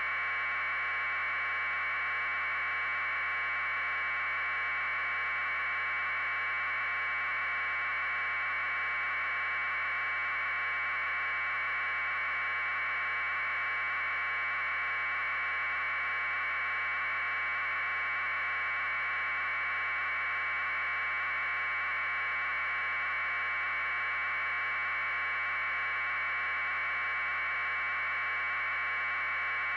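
Steady, even mid-pitched electronic hiss with nothing else heard, typical of a raw feed with no programme audio.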